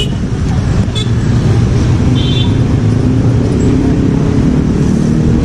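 Steady city street traffic, with motor vehicle engines running close by. A short high squeak sounds about two seconds in.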